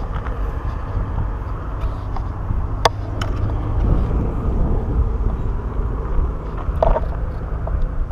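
Steady low outdoor rumble of road traffic and wind on the microphone, with a couple of sharp clicks, one about three seconds in and another near seven seconds.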